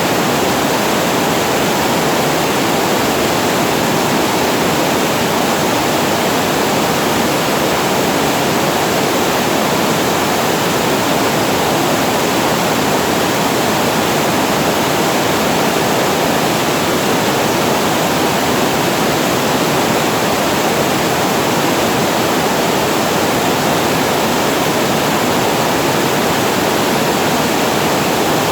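Water pouring over a weir into a waterfall, a loud, steady rush with no breaks.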